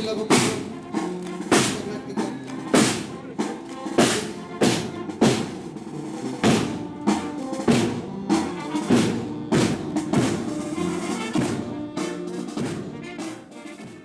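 Military marching band playing a march: snare and bass drums keep a steady beat under pitched instruments carrying the tune. It fades out near the end.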